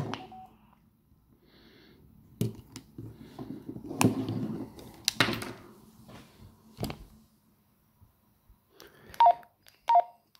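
Clicks, knocks and handling rustle as a speaker microphone is unplugged from a Baofeng UV-S9 handheld radio, then two short electronic beeps from the radio about nine and ten seconds in.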